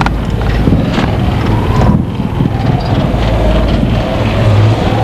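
Vehicle engine and road noise while driving into a tunnel, steady and loud, with a faint whine that sets in about a second and a half in and sinks slightly.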